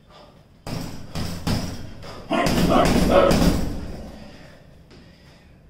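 Boxing gloves hitting a hanging heavy punching bag: a few single punches, then a quick run of punches in the middle that dies away.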